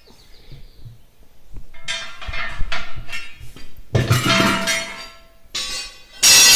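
Metal clanging and ringing: steel tire tools striking the bus's steel wheel, several hits with the loudest, a long ringing clang, near the end.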